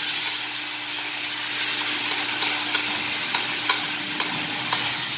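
Steady hum of a running press brake over a hissing, crackling workshop noise, with a few light clicks as a stainless steel sheet is handled and lifted.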